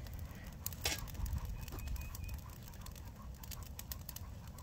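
Brush pile of wet, green tree branches burning, crackling with irregular sharp pops over a low rumble.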